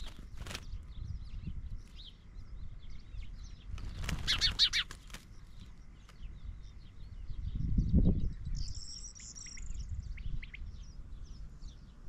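Small wild birds chirping and twittering, with a loud flurry of wing flapping and calls about four seconds in and a short high trill near the end. Wind buffets the microphone in low gusts.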